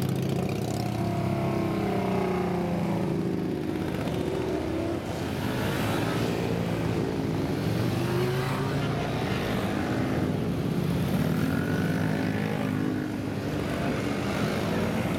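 Engines of a procession of motorcycles and motor scooters moving off and riding past one after another, several at once, their pitch rising and falling as each accelerates by.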